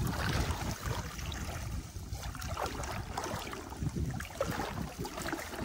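Shallow tidal water splashing and trickling in small irregular spurts as a fine-mesh set net is lifted and worked through it by hand, over a low wind rumble on the microphone.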